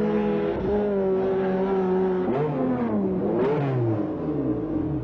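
Racing car engine running at steady high revs, then dropping in pitch a little past halfway, wavering briefly and falling again as the revs come down.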